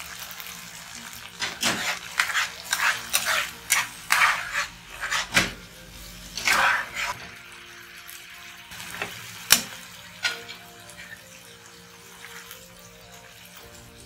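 A metal spatula-ladle scrapes and knocks against a frying pan in a quick run of strokes while stirring a sauce with onions. The stirring stops about halfway through, and a single sharp clink follows a little later. Faint background music runs underneath.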